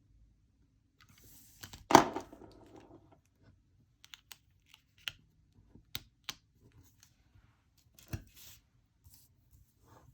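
X-Acto craft knife cutting around paper letters, with small scrapes, clicks and paper rustles. A single loud knock about two seconds in.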